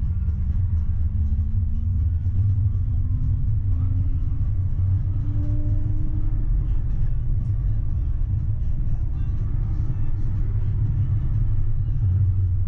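Tram running on its rails, heard from the driver's cab: a steady low rumble, with the electric traction motors' whine rising slowly in pitch over the first six seconds or so as the tram picks up speed.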